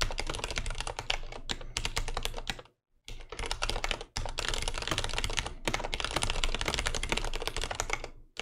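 Fast typing on a computer keyboard: dense runs of key clicks, broken by short pauses about three and about four seconds in.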